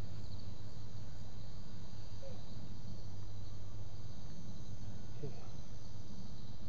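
Steady background chorus of insects with a continuous high-pitched chirring, over a low steady hum.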